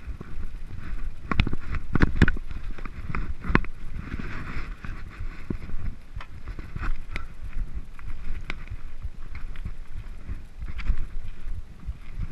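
Mountain bike riding down rocky singletrack: a steady low rumble with frequent sharp knocks and rattles as the wheels strike rocks, the hardest knocks about two seconds in.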